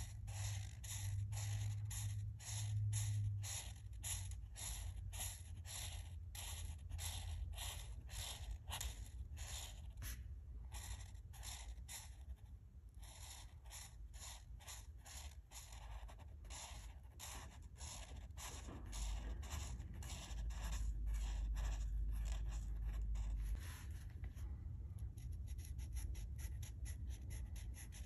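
Alcohol marker tips scratching over a colouring page in short back-and-forth strokes, about two a second and quicker in the last few seconds. A low hum sits underneath near the start and again about two-thirds through.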